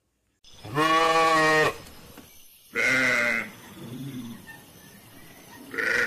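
A sheep bleating four times, the first call the longest at about a second and the third the faintest.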